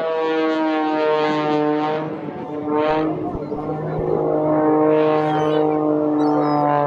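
Pitts Special aerobatic biplane's piston engine and propeller, droning loudly overhead. The pitch sags briefly about two and a half seconds in, then recovers as the aircraft manoeuvres.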